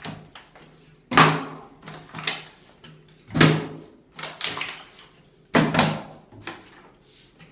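Plastic water bottle being flipped and landing on a marble countertop: three loud knocks about two seconds apart, each followed by one or two smaller knocks as the bottle bounces or tips over.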